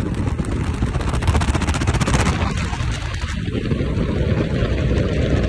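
First-generation Dodge truck driving at highway speed: steady engine, road and wind noise with a dense, rapid crackle, easing briefly about three seconds in.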